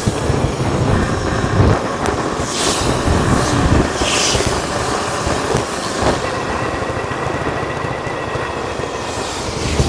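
Steady rush of wind and road noise from a moving bike, sped up fourfold, with a few short hissing gusts.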